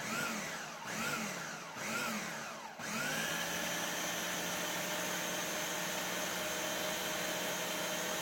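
Countertop blender grinding raw chicken breast. Its motor pulses three times, about a second apart, speeding up and slowing down each time. About three seconds in it switches to running steadily at full speed.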